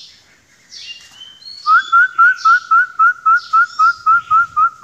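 Hill myna whistling a rapid run of short, rising notes, about four a second, that starts about a second and a half in. Fainter high chirps come before it.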